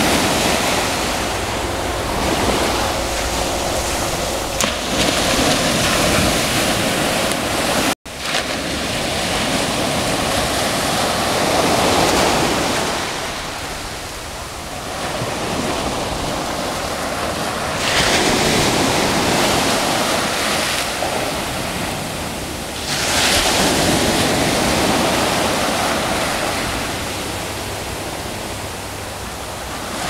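Mediterranean surf washing onto the beach, swelling and ebbing in surges every several seconds, with some wind rumble on the microphone. The sound cuts out for an instant about eight seconds in.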